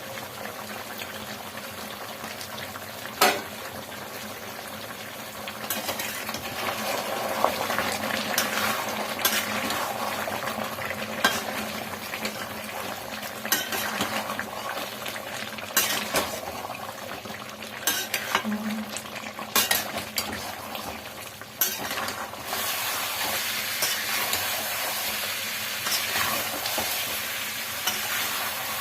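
Chicken curry sizzling and frying in a pan while it is stirred with a metal spoon, with sharp clinks of the spoon against the pan every few seconds, the loudest one about three seconds in.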